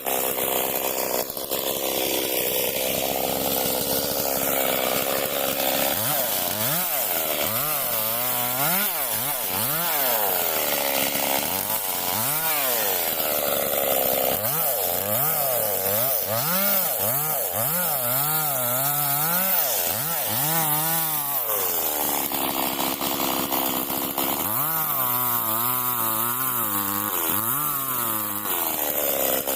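Stihl MS 382 two-stroke chainsaw running while cutting wood, its engine speed swinging up and down in quick waves in long stretches and holding steady at high revs in between.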